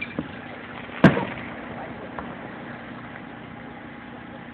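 Aerial firework shell bursting: one loud boom about a second in with a short echoing tail, after a smaller pop just before it.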